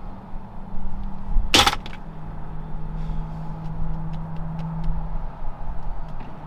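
A car door shutting with a single loud knock about one and a half seconds in, over the steady low hum of a car.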